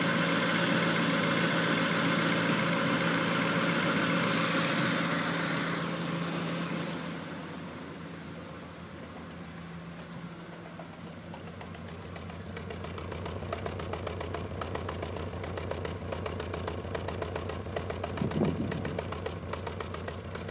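1994 Honda Accord's four-cylinder engine at a rough idle from a misfire in cylinder 4, whose spark plug the owner finds dry. About seven seconds in the sound turns quieter and lower, settling into an evenly pulsing hum, with a brief louder swell near the end.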